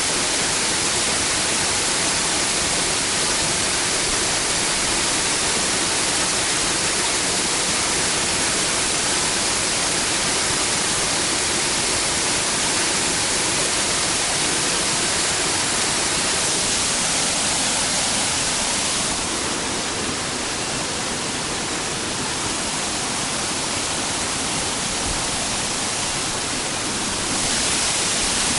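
Waterfall: a steady, loud rush of falling water that eases a little for several seconds in the second half.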